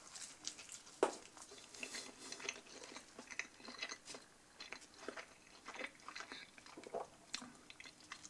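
A person bites into a slice of chicken döner-style pizza about a second in, then chews it with quiet, irregular clicking and crackling mouth sounds.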